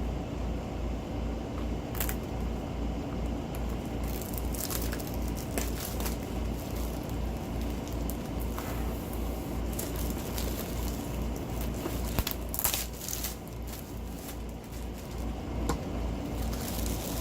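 A cardboard box and its packaging being cut and torn open by hand: scattered scrapes, clicks and crinkling, over a steady low hum that pulses a few times a second.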